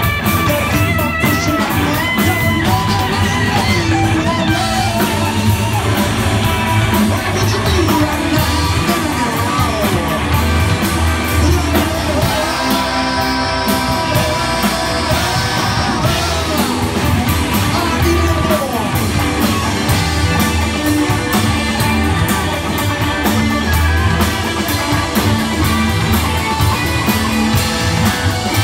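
Rock band playing live in a bar: electric guitars, bass guitar and drum kit, with singing.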